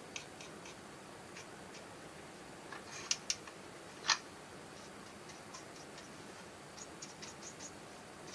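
Light, scattered clicks and taps from handling a plastic model boxcar and a paintbrush, with a few louder clicks about three to four seconds in.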